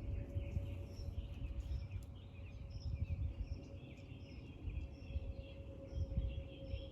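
Outdoor background of small birds chirping repeatedly at a high pitch, over an uneven low rumble and a faint steady hum.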